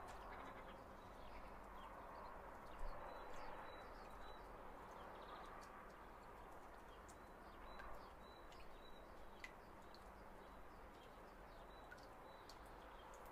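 Faint background ambience: a low steady hiss with scattered small ticks and a few brief high chirps.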